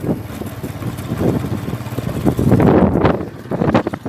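Motorcycle engine running as it rides past, with wind buffeting the microphone in gusts during the second half.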